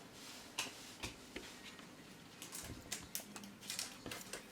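Faint, scattered light clicks and taps, about a dozen over a few seconds and more frequent in the second half, like small objects being handled or tapped.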